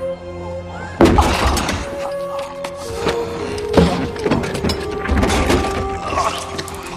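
A heavy wooden cross crashing down with the man carrying it about a second in, a sudden loud impact followed by thuds and clatter, with a second hard hit near four seconds. Dramatic film score with held notes plays under it.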